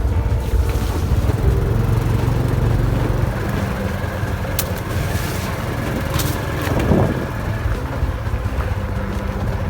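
Small motorbike engine running steadily at riding speed, heard from the rider's seat as a continuous low rumble, with a few brief clicks midway.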